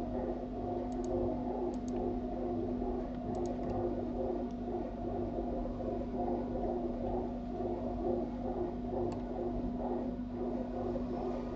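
A steady electrical-sounding hum with a wavering drone, with a few faint computer-mouse clicks, some in quick pairs, about a second in, near two seconds, around three and a half seconds and near nine seconds.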